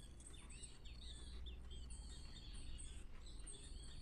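Small birds chirping and twittering continuously in the background, many quick overlapping calls, faint over a low steady hum.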